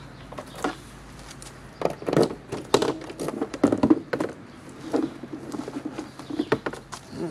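Irregular clicks, knocks and rustling of hand tools and metal parts being handled on a scooter, coming thick and fast from about two seconds in.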